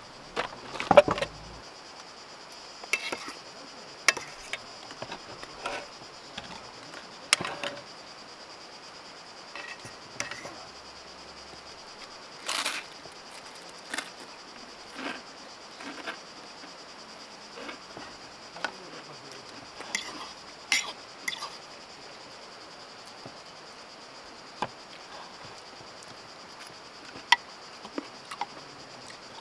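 A steady high-pitched insect chorus, with irregular clicks and light knocks of things being handled; the loudest knock comes about a second in.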